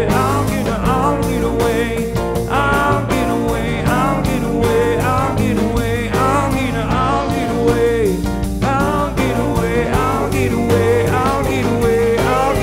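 Live rock band playing with a steady beat: acoustic guitar, electric bass and keyboard, with two voices singing together.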